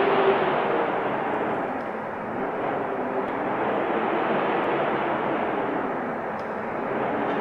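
Steady wind blowing, a rushing noise that swells and eases, strongest at the start, dipping about two seconds in and building again near the end.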